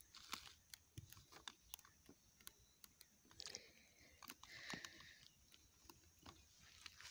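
Near silence with faint, irregular small clicks and crackles of stripped electrical wire ends being handled and pulled apart.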